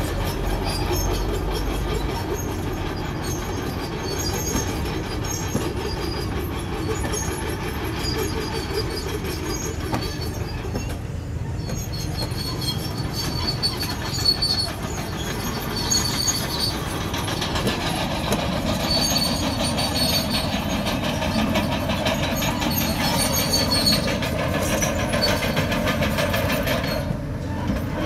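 Crawler bulldozer working: its diesel engine runs under load while the steel tracks clank and squeal steadily, with the pitch of the machinery shifting a little over halfway through.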